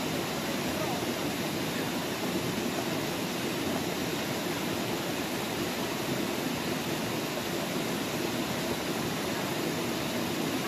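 Small river cascades rushing over rocks into a pool: a steady, even rush of water.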